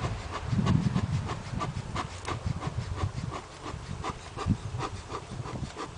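Honeybees buzzing around an open hive. Over the buzzing run light clicks about three a second, with a low rumble in the first second.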